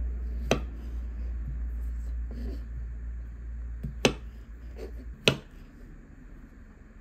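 Kitchen knife cutting through boiled small potatoes and knocking on a bamboo cutting board: three sharp taps, one about half a second in and two more about four and five seconds in. A low steady hum underneath stops about five seconds in.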